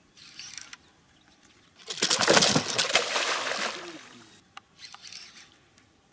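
A caught barramundi thrashing, in several short noisy spells with the loudest from about two to four seconds in.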